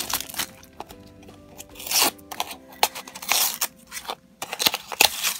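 Small cardboard blind box being torn open by hand in several short rips and crunches, over soft background music.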